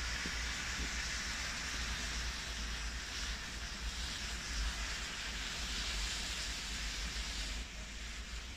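Thousands of burning matches in a match-built volcano, the fire giving a steady hissing rush with a low rumble underneath that eases slightly near the end.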